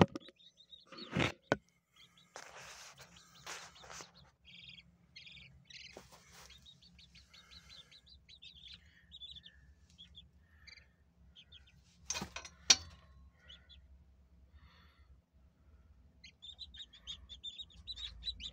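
Young chicks peeping in short, high notes, on and off, as they settle under a broody hen. There is a rustle early on and two sharp knocks about twelve seconds in.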